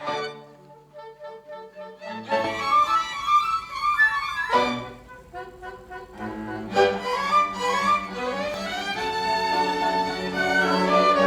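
Violin ensemble playing sustained notes, starting softly and growing fuller about two seconds in.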